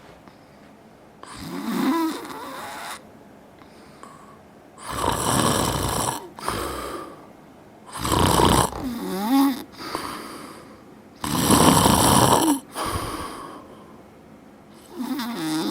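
A man snoring heavily in his sleep: loud rasping snores about every three to four seconds, some with a wavering pitched tone, with quieter breathing in between. The uploader puts the snoring down to age.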